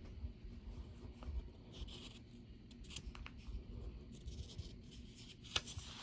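Faint rustling and handling of sheets of paper, with a few light ticks and a sharper click near the end as a sheet is lifted to turn to the next page.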